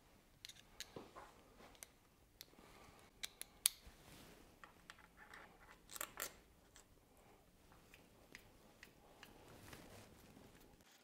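Faint, scattered light clicks and ticks of a 4 mm Allen key and small bolts being started by hand into a billet aluminium fender bracket, with a few sharper clicks around the middle.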